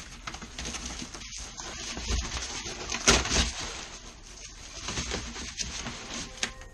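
Cardboard and paper rustling and scraping as a box is torn open and a piece of cardboard taped to its side is pulled off, with several short sharp rips or knocks, the loudest about three seconds in.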